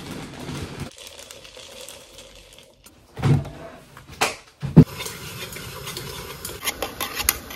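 Metal wax-pouring pitcher being handled at a double boiler. There are a couple of dull knocks and one sharp, loud knock about five seconds in as it is lifted and set down. A run of light metallic clinks follows near the end, a thermometer against the metal.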